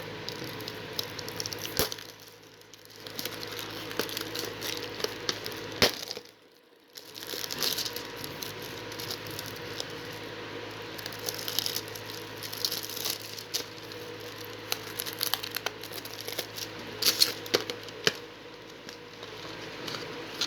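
A Blu-ray case and its plastic packaging being handled: scattered sharp plastic clicks and crinkling over a steady hum, with two brief drops in level near the start.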